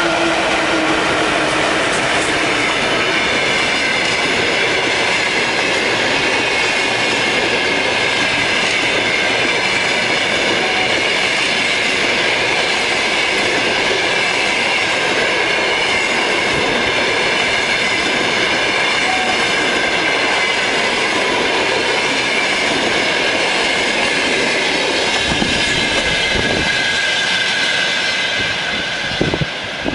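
Express passenger train behind a ChS7 DC electric locomotive passing close by at speed. The locomotive's hum fades in the first second or so, then the coaches' wheels give a steady rumble and clatter on the rails with a faint high whine. A few sharp knocks come near the end as the last coach passes, and the sound then fades as the train draws away.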